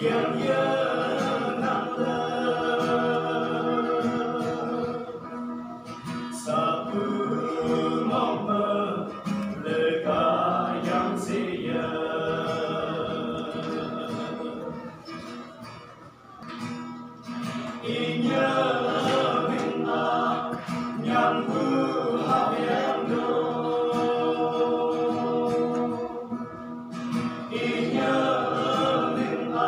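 A small mixed group of men and women singing a song together in chorus. The singing thins out and drops in level around the middle, then comes back full.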